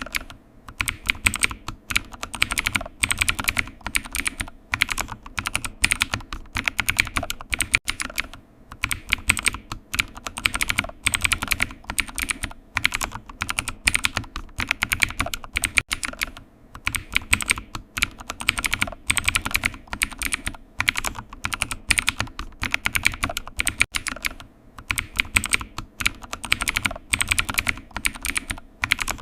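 Fast, continuous typing on a computer keyboard: a dense run of key clicks, broken by brief pauses about every eight seconds.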